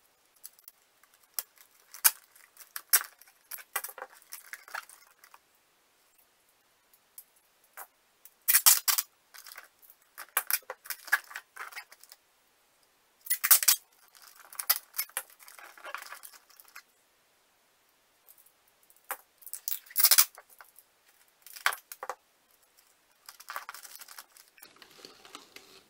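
Brown packing tape being pulled off the roll in short, sharp rips, several times over, with cardboard handled and tape pressed onto the box in between. There are quiet gaps of a few seconds between the rips.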